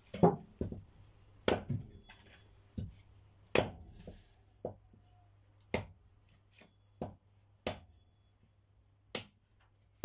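Firewood being handled or split: a series of sharp wooden knocks and cracks, about nine in all, roughly one a second at an uneven pace, the loudest at the start.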